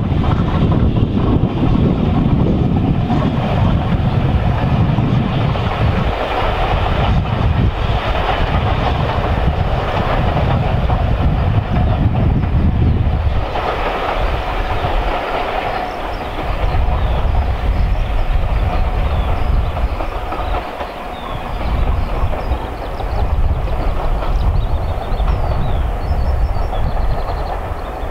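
A steam-hauled passenger train passing, its wheels clattering over the rail joints. A little under halfway the sound changes abruptly to the train running farther off, with a thinner, lighter rumble.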